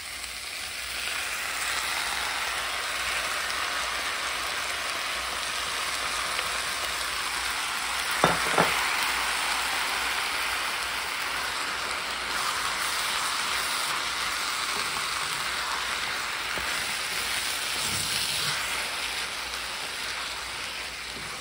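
Octopus in red chili sauce sizzling as it is stir-fried with cabbage and green onion in a frying pan, a wooden spatula stirring through it. The sizzle swells about a second in as the saucy octopus spreads over the hot pan, and two sharp knocks come about eight seconds in.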